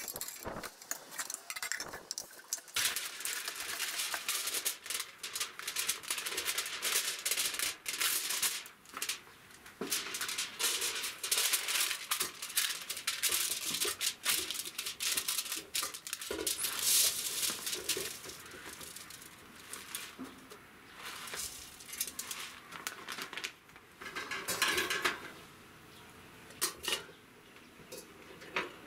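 Aluminium foil crinkling and rustling as it is pressed into a stainless steel pot, mixed with clinks and clatters of metal cookware and a wire grill rack being handled.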